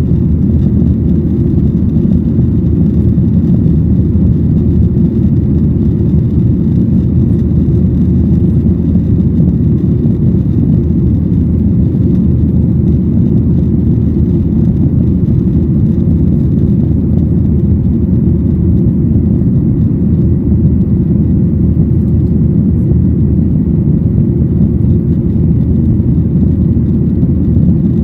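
Steady low cabin roar of a Boeing 737-800 in the climb: its CFM56-7B jet engines and the rush of air past the fuselage, heard from a window seat inside the cabin.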